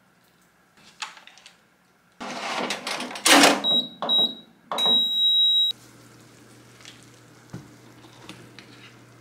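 Countertop mini oven being handled: clattering of the tray and door, then two short electronic beeps and a longer beep from its controls. A low steady hum starts as the long beep ends.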